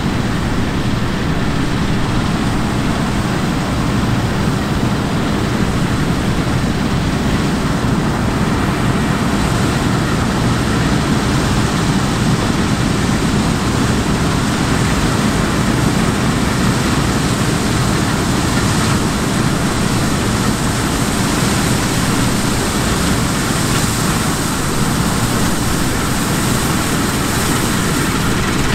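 Steady engine or vehicle noise: a continuous drone with a low hum under an even hiss, unchanging throughout.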